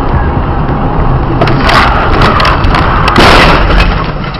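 Road collision picked up by a dashcam microphone: steady road rumble, then about a second and a half in a burst of bangs and crunching impacts lasting a couple of seconds, loudest near the three-second mark.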